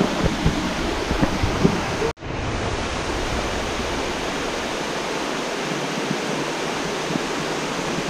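Steady rushing of a small waterfall cascading into a rocky stream, with a few knocks in the first two seconds. The sound drops out for an instant at a cut about two seconds in, then the water noise goes on unchanged.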